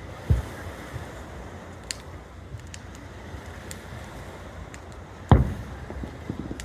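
Fireworks bursting: a few dull booms, the loudest about five seconds in, over a steady wash of wind and surf.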